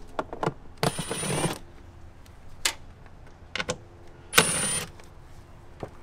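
Cordless electric ratchet spinning out 8 mm bolts in two short runs, about a second in and again a little past four seconds, each with a thin high whine. Small metal clicks of the socket and bolts fall between the runs.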